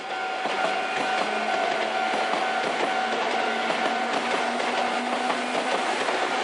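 Sotetsu electric commuter train running along the track, its wheels rolling under a steady whine.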